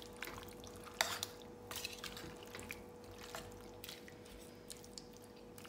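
A spoon stirring cooked tapioca and sardine pieces in a metal pressure-cooker pot: soft wet squishes with a few light clicks of the spoon against the pot, over a faint steady hum.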